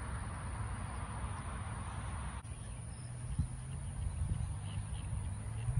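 Outdoor ambience: a low rumble of wind on the microphone, with faint, short bird calls repeating through the second half.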